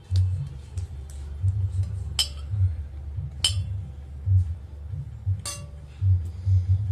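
A spoon clinking against a dish three times, each a sharp ringing tap, among low muffled thumps close to the microphone while eating.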